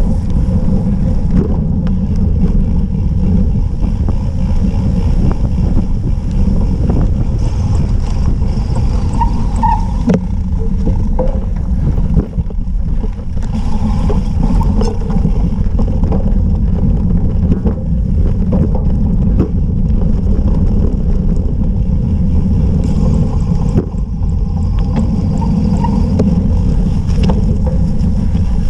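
Steady low rumble of wind and rough-ground vibration on a bicycle-mounted camera while riding a cyclocross bike over dirt and gravel, with a few scattered knocks and rattles from bumps.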